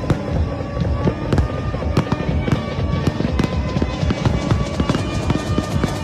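Fireworks bursting and crackling in quick irregular succession, the crackle getting denser toward the end, mixed with electronic dance music.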